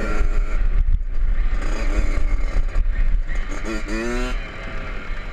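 Kawasaki KX 65's 65 cc two-stroke single running as the bike rides along a dirt track, heard from a camera mounted on the bike, with heavy wind buffeting on the microphone. About four seconds in there is a brief rise in pitch like a short rev.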